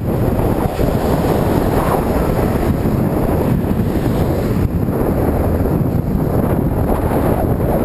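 Wind buffeting the microphone of a camera riding on a moving bicycle: a steady, loud low rumble without a break.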